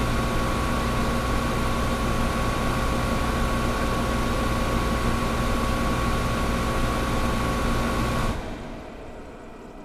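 Old window air conditioner running with a steady hum and whine over a noisy rush of air; a little over eight seconds in it cuts out and the sound falls to a much fainter hiss.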